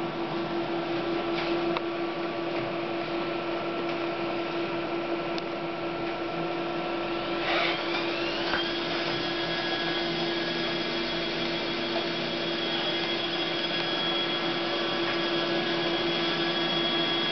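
Memjet SpeedStar3000 label printer running with a steady mechanical hum. A little over seven seconds in, a whine rises quickly and then holds at a steady high pitch.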